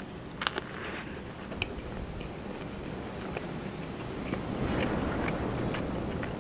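Close-miked bite into a shawarma wrap, with a sharp crunch about half a second in, then chewing. A steady rush of strong wind outside sits under it and swells a little near the end.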